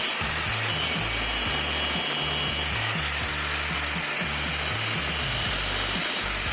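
Background music with a stepping bassline over a power tool working metal, its high motor whine dipping in pitch and recovering twice as it takes load.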